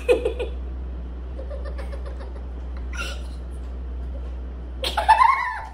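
Two young women laughing: short bursts of laughter at the start, then a loud, high-pitched laughing squeal about five seconds in, over a steady low hum.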